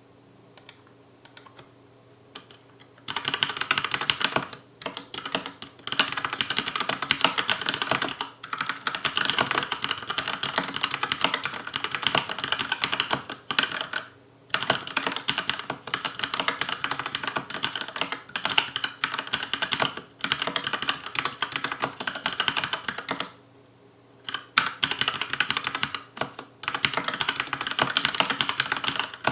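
Fast touch typing on a Logicool K835 TKL mechanical keyboard with TTC linear red switches: a dense clatter of keystrokes with a few brief pauses. A few scattered keystrokes come first, then continuous typing from about three seconds in.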